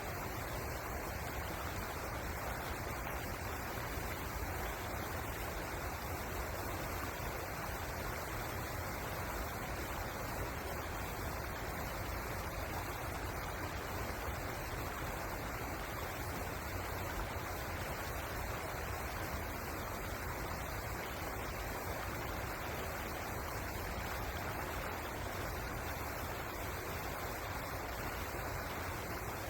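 River water flowing, a steady, unchanging rushing noise.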